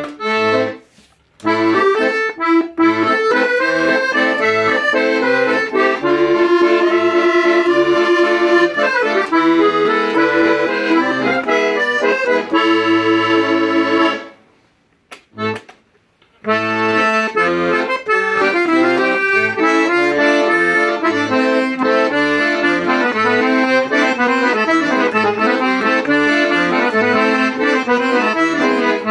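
Hohner Organola accordion being played: a melody over a rhythmic bass-and-chord accompaniment from the left hand. There are short stops near the start and a pause of about two seconds around the middle, broken by one brief chord.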